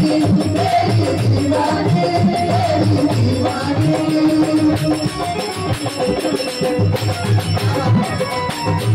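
Live devotional bhajan music: a harmonium plays the melody over a steady electronic drum-pad beat.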